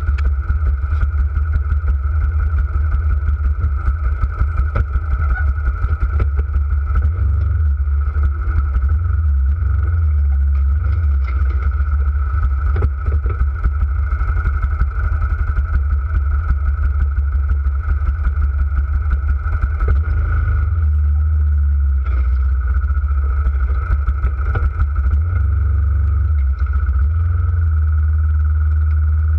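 ATV engine running at idle, a steady low sound throughout.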